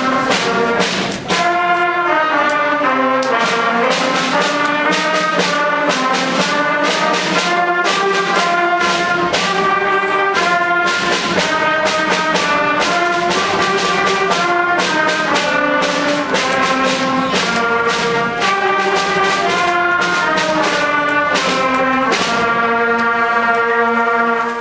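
A brass ensemble playing a lively piece in quick rhythm, closing on a long held chord near the end.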